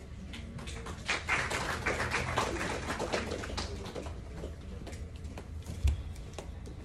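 Scattered hand-clapping from a small audience: a run of many quick claps that starts about a second in and tapers off, with a few stray clicks after.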